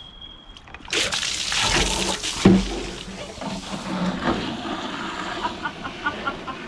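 Water pouring from a fill-station hose into a container. It starts about a second in, with a sharp knock about two and a half seconds in.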